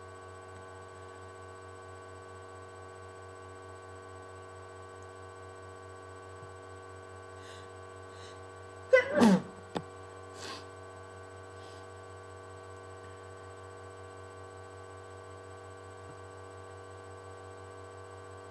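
One person's sneeze into a handkerchief, loud and short, about halfway through, followed by a smaller sound about a second later. A steady hum with several faint fixed tones runs underneath.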